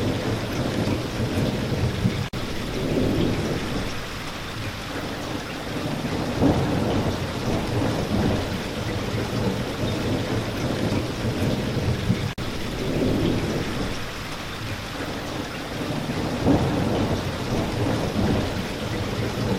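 Steady heavy rain falling, with low rumbles of thunder swelling and fading underneath. The sound cuts out for an instant twice.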